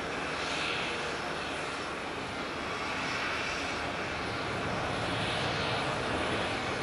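Airliner jet engines running: a steady rushing roar with slow swells in its hiss.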